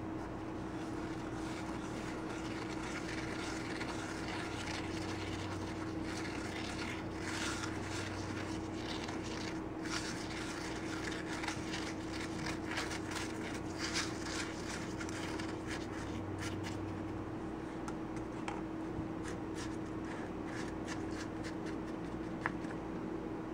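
Wooden skewer stirring sawdust into melted paraffin wax in a paper cup: soft, irregular scraping and rubbing, over a steady low hum.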